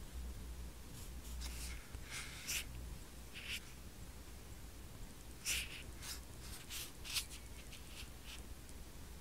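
Faint, irregular scratchy brushes and light ticks, a dozen or so short ones, from fingertips tapping and swiping across an iPod touch's glass touchscreen while it is handled. A steady low hum lies underneath.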